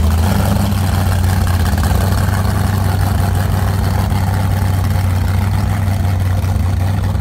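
Chevy 454 big-block V8 of a ski boat, breathing through open chrome exhaust pipes, running loud and steady near idle as the boat moves off slowly.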